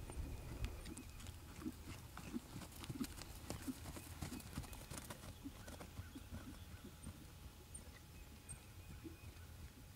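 Hoofbeats of a grey horse trotting on grass under saddle: soft, fairly faint thuds in a steady, repeating rhythm.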